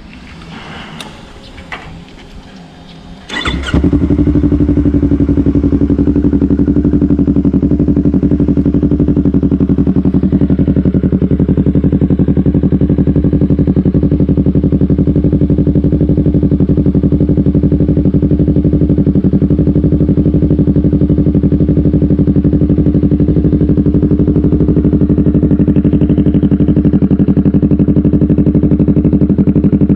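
Yamaha YZF-R3 parallel-twin engine breathing through an M4 slip-on exhaust: after a few clicks it starts about three seconds in, then idles loud and steady.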